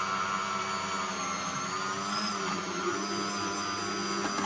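Countertop blender running, puréeing pumpkin soup with milk: a steady motor whine whose pitch wavers briefly midway as the load shifts. A short click near the end.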